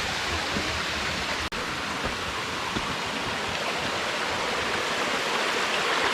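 A small waterfall on a stream rushing steadily, an even hiss of falling water that drops out for an instant about a second and a half in.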